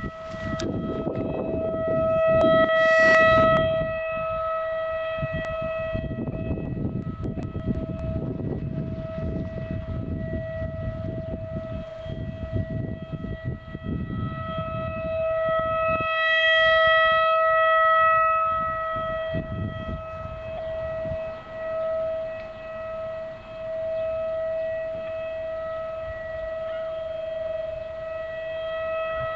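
Outdoor emergency warning siren sounding a steady, single-pitched tone for a scheduled test, not a real alert. Its loudness swells and fades several times.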